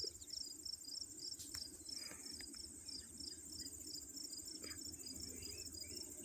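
Insects chirping in a steady, regular rhythm, about four short high chirps a second, over a continuous higher trill.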